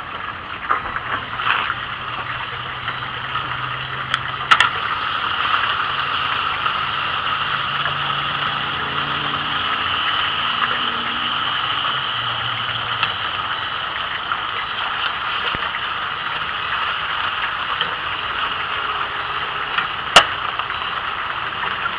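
Meat sizzling on the rocket-stove grill's hot quarter-inch steel plate, a steady hiss that grows louder after a metal clank about four seconds in, when the grill lid is opened. A sharp metal click comes near the end.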